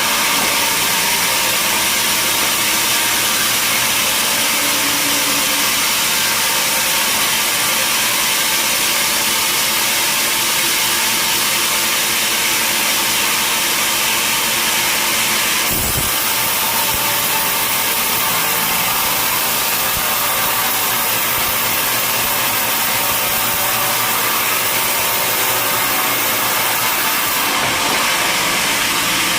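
Sawmill machinery cutting a large log: a loud, steady, hissing saw noise with a machine hum under it. The tone shifts abruptly about halfway through and again near the end.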